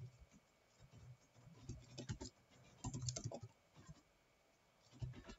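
Computer keyboard typing, faint, in several short bursts of keystrokes with pauses between them.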